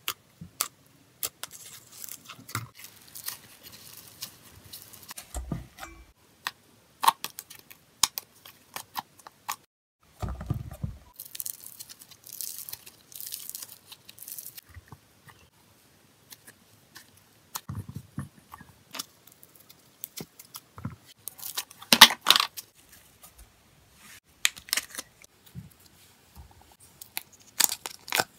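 Hands squishing, poking and pulling apart slimes, including bead-filled floam, with sticky crackling, popping and tearing sounds and scattered sharp clicks. The crackling comes in longer runs a couple of seconds in and again around the middle, with the loudest crackle about three quarters of the way through.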